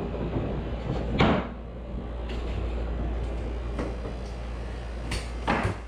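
A few scattered knocks and thuds from floor work on bare wooden floorboards, the loudest about a second in and another near the end, over a steady low hum.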